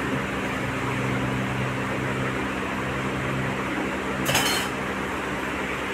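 A steel spatula works in a metal frying pan of dal, with a short metallic clatter about four seconds in as it is knocked against the pan. A steady hum runs underneath.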